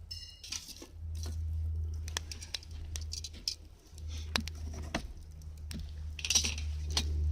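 Wood campfire crackling and popping with irregular sharp snaps, under a low rumble of wind on the microphone that swells and eases.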